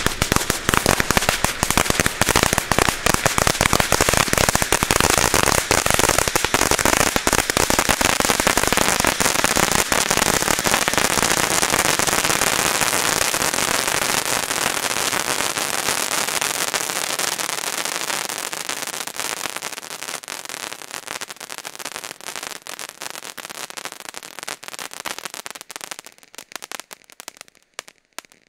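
Ground firework fountain spraying sparks with dense, continuous crackling. The crackle holds strong for the first part, then thins and fades over the last ten seconds until the fountain burns out near the end.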